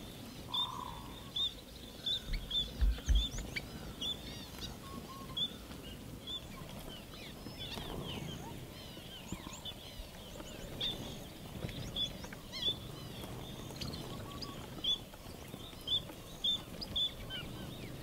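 Flock of finches, mostly Gouldian finches, calling: many short, high chirps scattered throughout. A few low thumps come around two to three seconds in.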